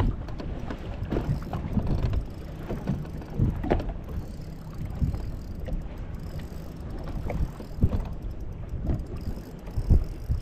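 Wind buffeting the microphone aboard a fishing boat: a steady low rumble broken by irregular low knocks and thumps.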